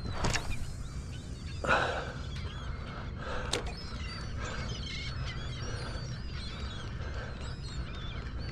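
A flock of birds calling over one another, many short high calls, over a steady low wash of wind and water. There are a few short louder noises near the start and about three and a half seconds in.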